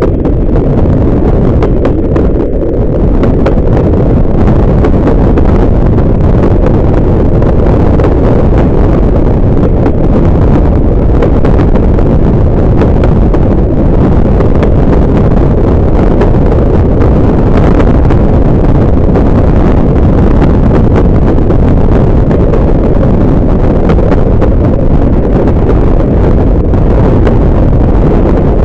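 Heavy, steady wind buffeting the microphone held out of the window of a train at speed, over the low rumble of the carriages running along the track.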